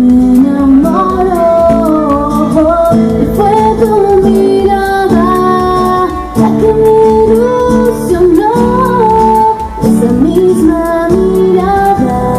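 A woman singing live into a handheld microphone over instrumental accompaniment with a steady beat.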